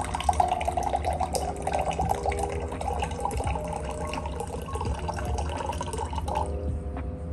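Water pouring from a glass pitcher into a drinking glass, a steady splashing stream that stops near the end.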